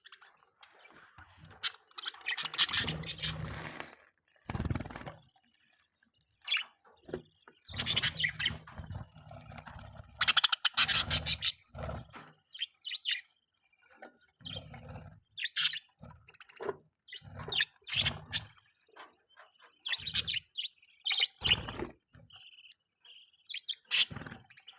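Pet budgerigars chirping and chattering in irregular bursts of quick, high calls, with some low bumps or rustles mixed in among them.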